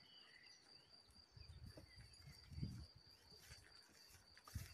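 Near-silent rural outdoor ambience: a steady high-pitched insect drone with a few faint bird chirps, some low rumbles in the middle and a sharp click near the end.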